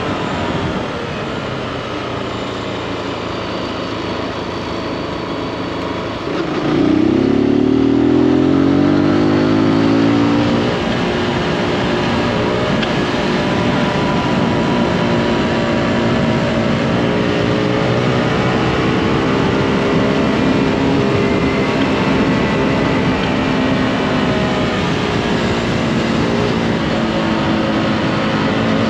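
Zontes G155 Scrambler's 155 cc single-cylinder engine under way. The revs drop at the start and hold steady for a few seconds. About six seconds in it gets louder, revs climbing hard for about four seconds, then settles into a steady cruise with the revs gently rising and falling.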